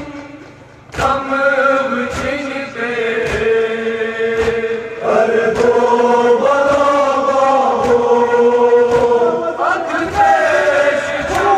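Men's voices chanting a Kashmiri nohwa, a Muharram lament, in long drawn-out phrases, with matam chest-beating strikes landing about once a second. The chant drops back briefly and resumes about a second in.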